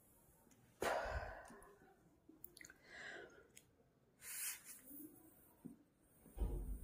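Puffs of breath blown into a small pocket of nano tape held at the lips to inflate it: one about a second in that fades over a second, another around four seconds. A few faint clicks come in between, and there is a low thud near the end.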